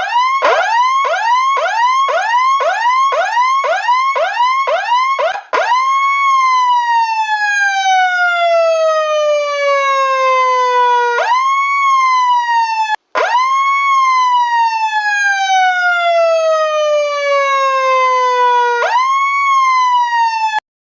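Electronic emergency-vehicle siren on a rapid yelp, about two and a half sweeps a second, switching after about five seconds to a slow wail. Each wail cycle is a quick rise followed by a long falling glide of about five seconds. The sound breaks off briefly about thirteen seconds in and stops just before the end.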